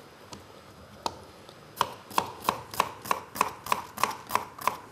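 Kitchen knife chopping an onion on a cutting board. Two single knocks are followed, about two seconds in, by a steady run of sharp strokes, about three a second.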